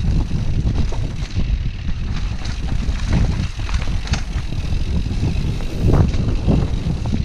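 Wind buffeting a mountain biker's camera microphone as a low rumble during a ride, with scattered knocks and rattles from the bike on rough trail; the loudest knock comes about six seconds in.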